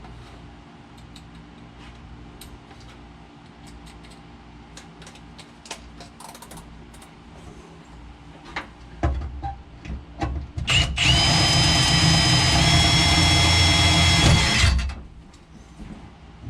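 Handheld electric drill drilling a marked hole: a few short bursts on the trigger, then about four seconds of steady running whine whose pitch steps up slightly partway before it stops. Light clicks of handling come before it.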